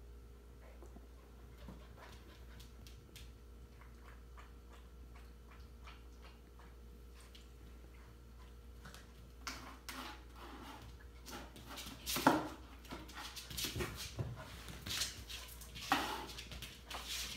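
Samoyed puppy making short vocal sounds as it plays on its own. They start about halfway through and are loudest near the end. Before that there are only faint scattered clicks.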